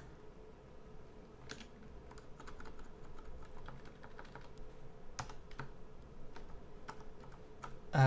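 Computer keyboard keystrokes, scattered and irregular, as code is typed and edited.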